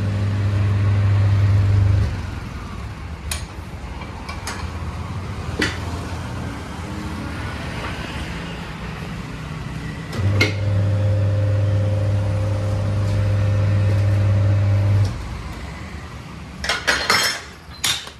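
The electric motor of a tyre-changing machine runs with a steady hum for about two seconds at the start and again for about five seconds in the middle, while a motorcycle tyre is worked off its rim. Scattered sharp clicks run through it, and a quick run of metal clanks from tools on the rim comes near the end.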